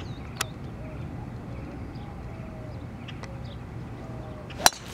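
A golf driver striking a teed golf ball: one sharp, loud crack near the end, over steady low background noise. There is a smaller click about half a second in.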